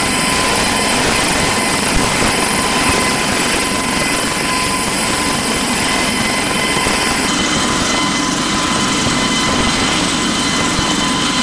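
Helicopter rotor and turbine engine running steadily, a dense rotor noise with a steady whine on top.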